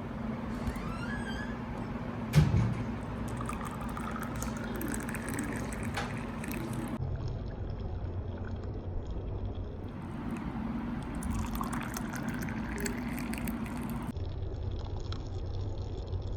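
Liquid being poured into a container, its pitch rising as the container fills, heard in two separate pours. A single knock comes about two seconds in.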